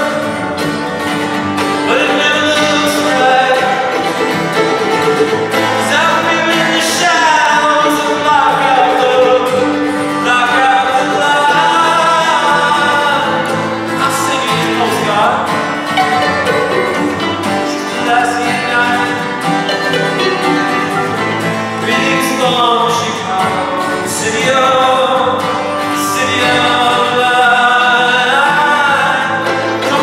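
Live acoustic band music: a man singing lead with a woman's harmony voice, over acoustic guitar and a violin plucked like a mandolin.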